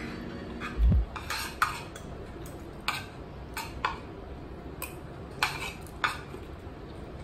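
Metal spoon and fork clinking and scraping on a plate, a dozen or so short clinks spread out, with a dull thump about a second in.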